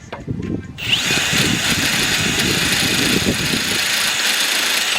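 Handheld power tool motor spinning up about a second in, running steadily for about four seconds, then winding down with a falling whine.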